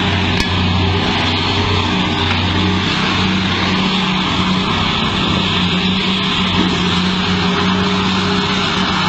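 Large diesel engine of a mining haul truck running loud and steady, with a deep hum.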